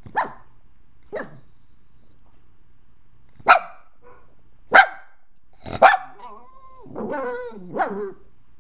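Small short-haired dog giving five short, sharp barks spread over the first six seconds, then a wavering whine that slides up and down in pitch near the end, its anxious reaction to fireworks.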